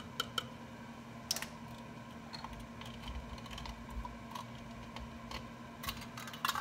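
Light clicks and taps of a measuring spoon against a plastic measuring cup as cayenne pepper is knocked in, a few in quick succession at first, then scattered single clicks, with a faint steady hum underneath.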